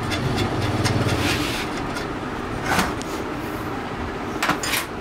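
Steady workshop machinery rumble with a low buzz in the first second and a half, and a few sharp metal clinks as sewing machine body parts are handled on a steel bench, about three seconds in and twice near the end.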